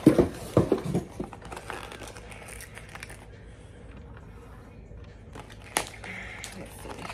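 A parcel being opened by hand: packaging crinkling and tearing, with a few sharp knocks in the first second and a single sharp click a little before the end.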